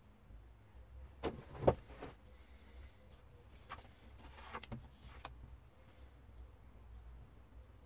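Workbench handling noises: a few short knocks and scrapes as the filler-coated metal lamp body and tools are moved about, the loudest a sharp knock a little under two seconds in.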